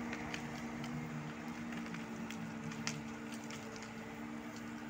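Steady low hum of a diesel engine running, most likely the Case 580L backhoe working the land, with scattered faint clicks and ticks over it.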